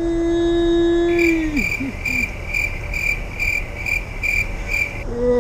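A drawn-out yawn, held about a second and a half and then dropping in pitch, followed by crickets chirping, about two or three chirps a second, that cut in and out abruptly like an added awkward-silence sound effect.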